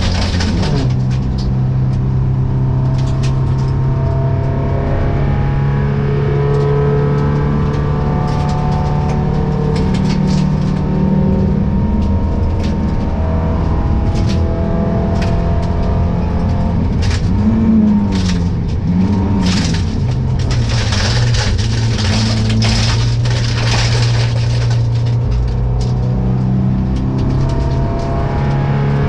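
Rally car engine running hard at high revs, heard from inside the stripped cabin, with gravel stones clicking against the underside of the car. About seventeen to nineteen seconds in, the engine note swoops up and back down twice.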